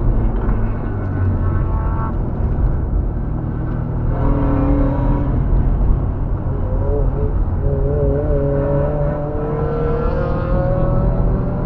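Car engine and road noise heard from inside the cabin while the car is driven hard around a race track through a corner, with the engine note climbing near the end as it accelerates.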